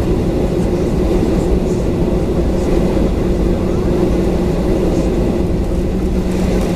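Steady cabin drone inside a Boeing 737-900, its CFM56-7B engines running at low power, with a constant low hum under a broad rushing noise.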